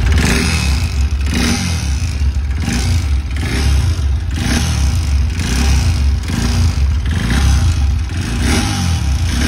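Bajaj NS200 single-cylinder engine running and repeatedly blipped, with a heavy mechanical clatter that grows with the revs. It is a really bad sound: the piston has broken and pieces of it are loose inside the engine.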